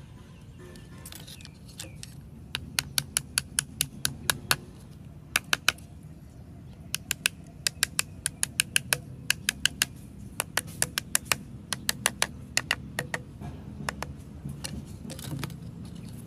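Bursts of sharp, ringing metal clicks, several a second, as a small metal hand tool works on an angle grinder's red gear housing during disassembly. The clicks stop and start in groups and turn softer near the end.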